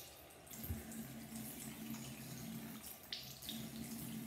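Bathroom sink tap running steadily, with water splashed onto the face from cupped hands; a couple of short splashes about three seconds in.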